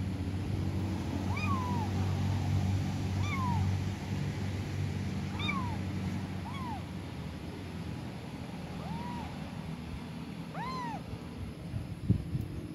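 Kittens meowing: six short, high mews, each rising and falling, spaced one to two seconds apart, over a steady low rumble. A single knock comes near the end.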